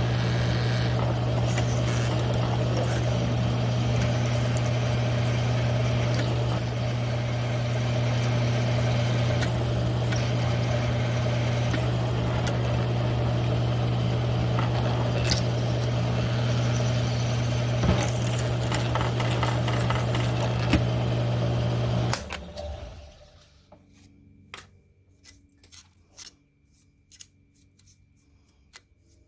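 Grizzly G1007 mill-drill running with a steady motor hum and cutting noise as a Lenox hole saw cuts a 1-inch hole in 3/8-inch steel plate. About 22 seconds in the machine is switched off and winds down. Scattered light metallic clicks follow.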